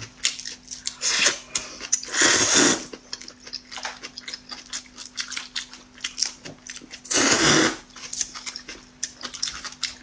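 Corn noodles being slurped in three loud, hissing slurps, about a second, two seconds and seven seconds in, between close-up chewing and small smacks and clicks.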